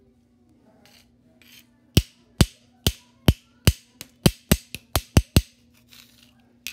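About a dozen sharp blows striking a wrecked computer mouse. They start about two seconds in and come faster and faster before stopping, with a single further hit near the end.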